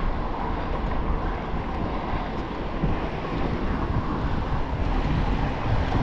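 Wind rushing over the microphone of a camera on a moving road bike, with a steady hiss of tyres on wet asphalt.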